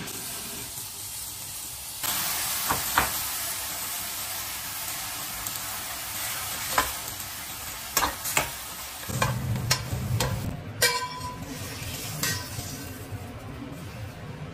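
Braised pork ribs sizzling in a hot stainless steel frying pan, the sizzle getting louder about two seconds in. A spatula knocks and scrapes against the pan a few times as the ribs are turned.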